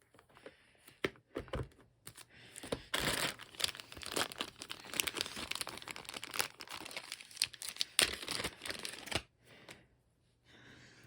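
Plastic packaging crinkling and tearing as board-game components are unwrapped, with a few handling clicks at first and then steady rustling from about three seconds in until about nine seconds in.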